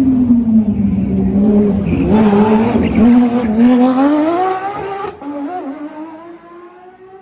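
Porsche flat-six engine pulling hard, its note climbing steadily in pitch as it revs up, then fading away over the last couple of seconds.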